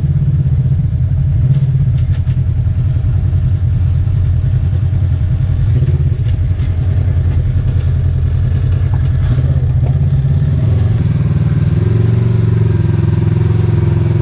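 Side-by-side UTV engine running steadily with low rumbling, and a second, higher engine note joining about twelve seconds in.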